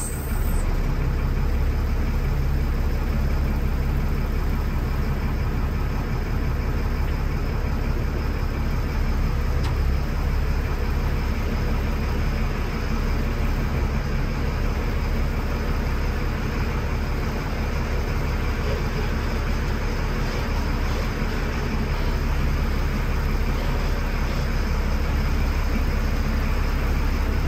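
Military LMTV truck's diesel engine running steadily as the truck reverses slowly, a deep even drone heard from inside the cab.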